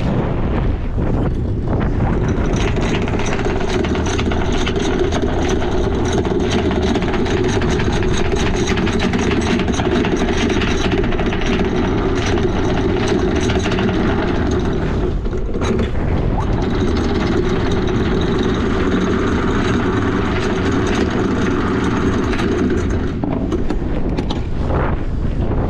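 Electric anchor windlass motor running with the anchor chain, a steady mechanical drone that stops briefly about fifteen seconds in and then runs on.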